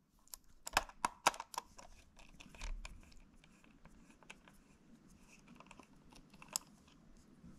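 Light, irregular clicks and scrapes of a small Phillips precision screwdriver backing screws out of the plastic underside of a Logitech MX Master 2S mouse as it is handled, with a cluster of sharper clicks about a second in.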